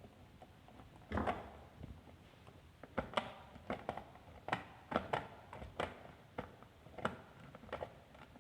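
Sharp clicks and light knocks, irregular, about one or two a second after a first soft knock, from a screwdriver and a plastic wall-socket casing being handled while wires are fixed and terminal screws tightened.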